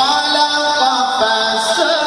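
A male Quran reciter's voice in melodic tajwid recitation in maqam Nahawand, through a microphone. He holds long notes and slides between pitches in ornamented turns, with a small rise at the start and another near the end.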